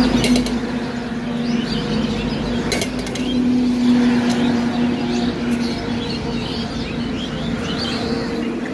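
A steady low engine-like hum under outdoor ambience, with light bird chirps. A couple of sharp metal clinks, near the start and about three seconds in, fit a spoon striking a steel mixing tin.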